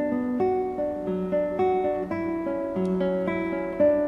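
Background music: a picked acoustic guitar playing a melody of single plucked notes, a new note every few tenths of a second.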